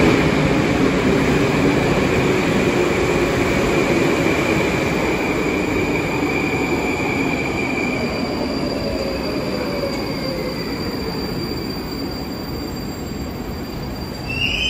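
Moscow metro train running on the Big Circle Line: a steady rail rumble with a high wheel squeal. The noise slowly gets quieter and a motor whine falls in pitch as the train slows down.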